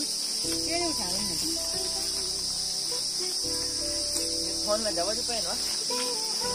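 Steady, high-pitched insect chorus droning without a break. A few short wavering pitched sounds come through it about a second in and again, a little louder, about five seconds in.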